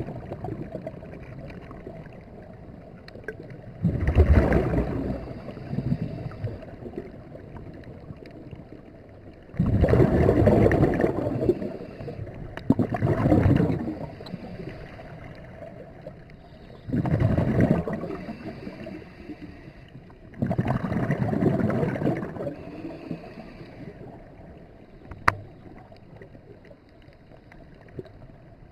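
Scuba diver's breathing recorded underwater: a burst of rumbling exhaled bubbles from the regulator every four to six seconds, over a low steady background. A single sharp click comes about 25 seconds in.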